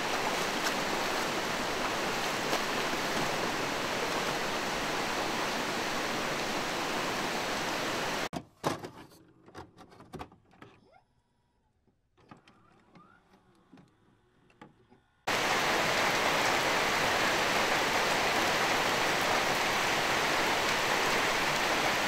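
Steady rushing of a swollen, muddy river running over rocks. About eight seconds in it cuts off for a transition with scattered glitchy clicks and short electronic blips, and about seven seconds later a steady rushing noise returns.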